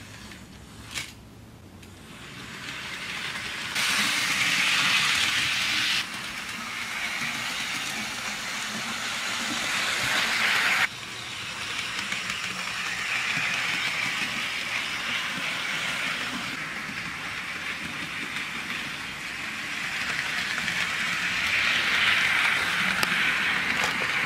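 Hornby OO-gauge LB&SCR Terrier model tank engine running along the track with two wagons: a steady rushing whir of its small motor and the wheels on the rails, swelling as it draws closer, with the loudness jumping abruptly a few times. A small click about a second in.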